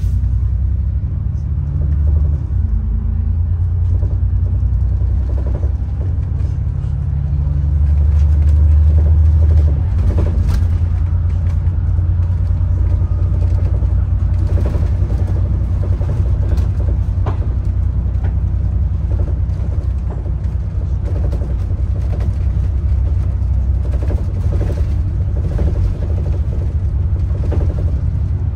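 Moving bus heard from inside: a steady low engine and road rumble that builds for a few seconds about a third of the way in, then drops off suddenly, with scattered rattles and knocks of the bodywork.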